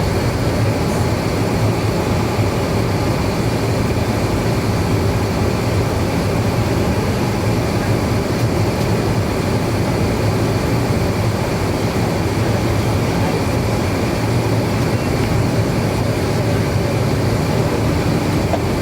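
Steady cabin noise inside an Avro RJ100 airliner: an even rush of air with a constant low drone, unchanging throughout.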